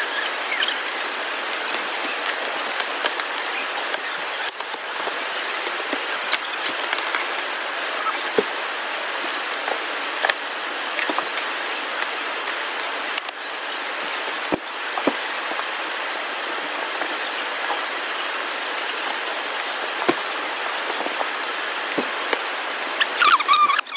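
Steady rush of flowing river water, with scattered faint ticks. Near the end come a few quick high chirps.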